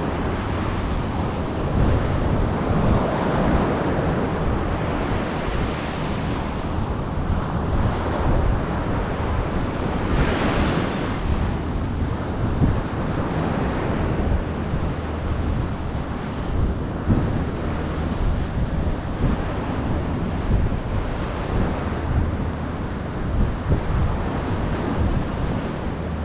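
Ocean surf washing onto the beach, a steady rush with one wave swelling louder about ten seconds in, while wind buffets the microphone.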